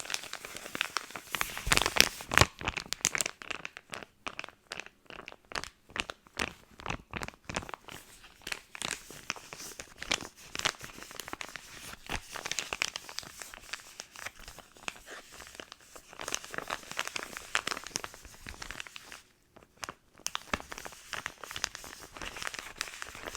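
Skincare product packaging being handled for ASMR: continuous crinkling and crackling with quick sharp clicks and taps. A brief pause comes a little over three-quarters of the way through.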